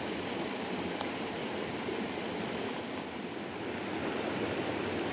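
River water running steadily, an even rushing sound.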